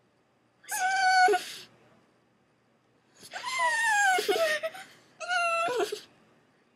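A pug whining in three long, high-pitched cries, the second sliding down in pitch, worked up by the doorbell.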